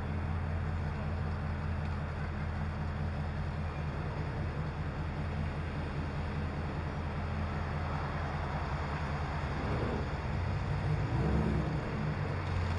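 Car engine idling steadily with a low, pulsing note, and a brief rise and fall in pitch about eleven seconds in.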